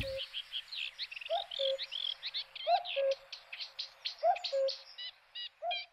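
Several birds singing in a reedbed: a busy run of quick, varied high notes, with a lower two-note call, the first note sliding up and the second held, repeating about every one and a half seconds.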